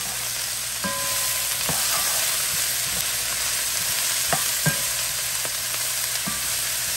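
Broccoli, Brussels sprouts and onions sizzling in a hot nonstick pan while being stirred with a spatula. The steady frying hiss is broken by several short scrapes and light knocks of the spatula against the pan.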